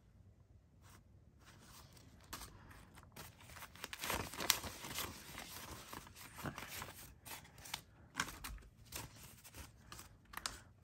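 Paper banknotes being counted by hand, with crisp, irregular rustling and flicks of the bills. It is quiet for about the first two seconds, and the rustling is busiest around the middle.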